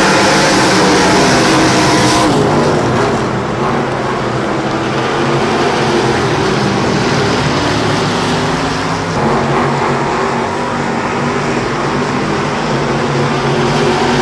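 Dirt-track race cars running laps at speed, several loud engines at once making a steady, continuous drone. The sharp high hiss falls away about two seconds in, leaving the lower engine drone.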